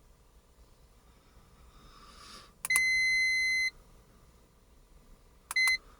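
Electronic beeper: one steady, high-pitched beep lasting about a second, then a short beep near the end.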